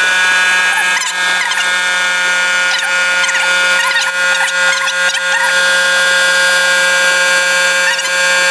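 Small electric air compressor's motor and pump running with a steady high whine, filling the tank toward about 10 bar. A few faint squeaks chirp over it between about one and five seconds in.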